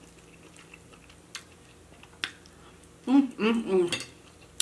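Close-miked eating: faint chewing with a few sharp clicks, then about three seconds in a short stretch of voice lasting about a second.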